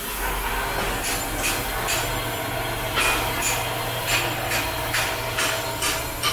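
Metal fabrication shop noise: sharp metal-on-metal knocks and hammer strikes, irregular at first and then about two a second, over a steady low machine hum.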